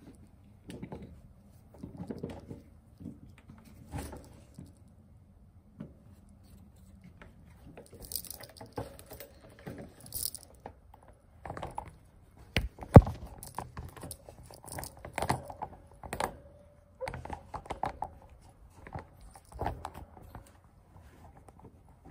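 Kitten's paws and fur rubbing and tapping against the phone right at its microphone: scattered scratchy rustles and soft knocks, with one sharp knock about thirteen seconds in.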